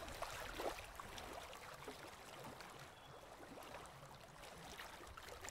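Faint steady background hiss with no distinct sound events.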